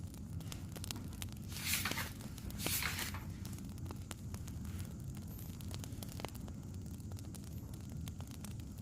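Wood fire crackling, scattered small pops over a steady low rumble, with two brief louder hissing bursts about two and three seconds in.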